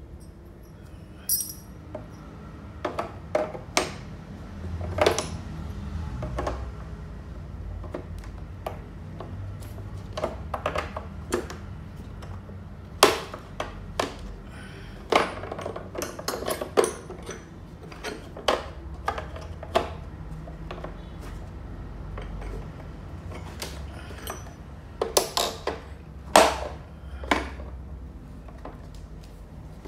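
Steel drill bits clicking and clattering against a hard plastic tray as they are handled and pressed into their slots, in irregular sharp clicks, a few louder clacks among them, over a low steady background rumble.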